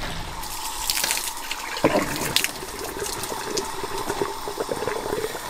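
Water from a garden hose running into a camper van's water tank, a steady gush with a held ringing tone as the tank fills, and a couple of knocks near the middle.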